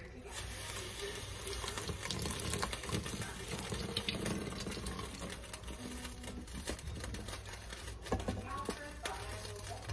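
Water poured in a stream from a metal cup into a stockpot of gravy, splashing in while a wooden spoon stirs the pot.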